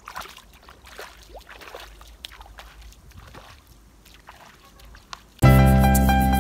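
Bare feet sloshing and splashing, faint and uneven, as someone wades through shallow muddy water. About five seconds in, loud piano music starts suddenly.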